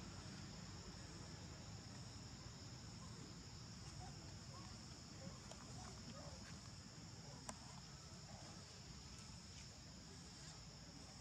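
Faint, steady chorus of insects, a continuous high-pitched shrill, with a few faint short chirps in the middle and a single sharp click about seven and a half seconds in.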